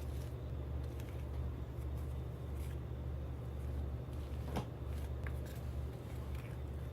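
Light clicks and rustles of small objects being handled, one sharper click about four and a half seconds in, over a steady low hum.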